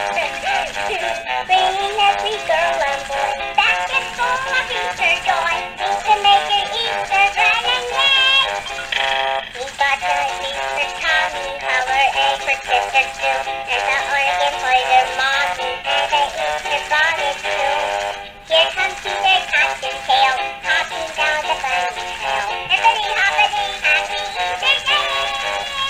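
Battery-operated singing plush Easter bunny toy playing its song: a synthetic singing voice over a jingly backing tune from the toy's small speaker.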